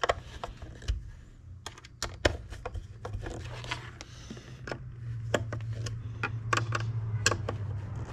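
Light clicks, taps and scrapes of a plastic car display housing and small screws being handled and fitted, over a low steady hum that grows louder about five seconds in.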